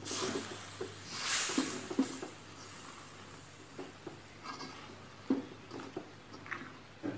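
Plastic spatula stirring and scraping a wet shredded-fish and coconut-milk filling in an aluminium wok, with soft knocks of the spatula on the pan. Two longer scraping hisses come in the first two seconds, then scattered knocks and squishes.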